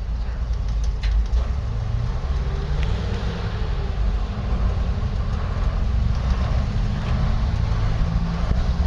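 Diesel-electric locomotive engines running with a steady low rumble.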